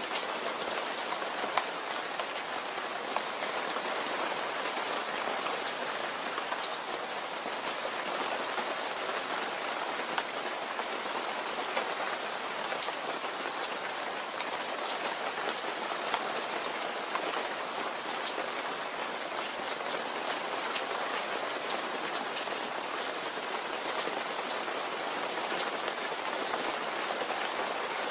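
Steady rain falling on a surface, an even hiss with many separate drops pattering sharply through it.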